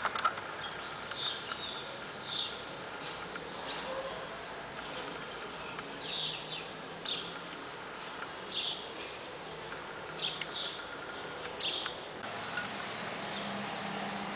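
Short high chirps from a small animal, about a dozen at irregular intervals of roughly a second, over a steady hiss. The chirps stop about twelve seconds in.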